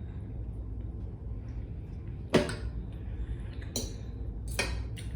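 Tableware clinking during a meal: one sharp clink a little over two seconds in, then three more in the last second and a half, over a steady low hum.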